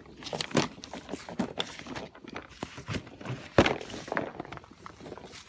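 Footsteps and the knocks and rustles of fishing gear being picked up and handled, with one sharp thunk about three and a half seconds in.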